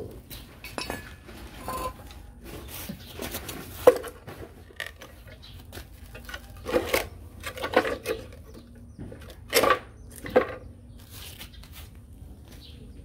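Heavy steel parts of a bench vise knocked and set down on its steel base plate: a series of separate metal clanks, several with a short ring.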